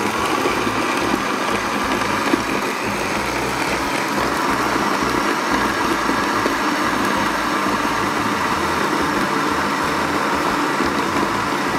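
Electric countertop blender running steadily, blending soursop pulp with water and sugar into juice. The motor stops near the end.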